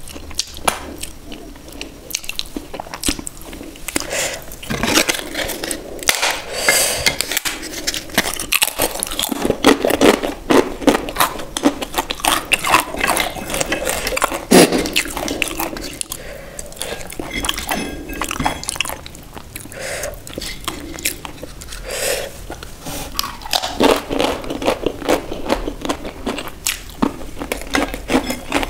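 Close-miked eating sounds: chewing mouthfuls of rice and paneer gravy eaten by hand, with crisp roasted papad being broken and crunched. There are many irregular crackles and crunches throughout.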